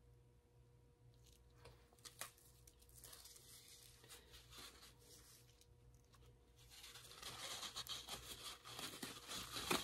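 Faint crinkling and rustling handling noise, with a few light ticks in the first seconds and a denser crackle building over the last three seconds.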